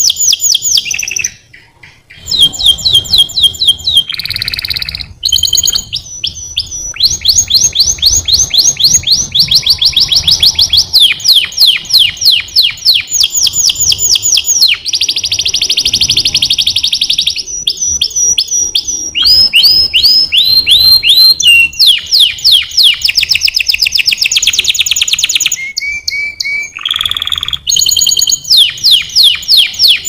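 White canary singing a long, loud song of rapid trills: quick runs of repeated notes that switch to a new trill every second or two, with a short pause about 1.5 s in.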